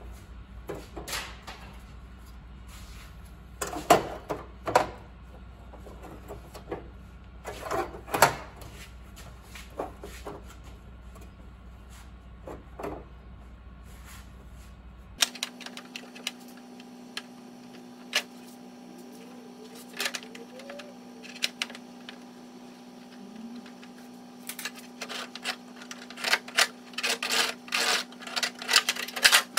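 Scattered sharp knocks and clicks. After an abrupt change in the background about halfway through, there is a run of rapid light tapping, several strikes a second, near the end.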